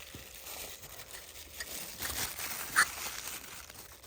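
Packaging being handled and opened: faint rustling and small clicks, with a brief crinkle a little under three seconds in.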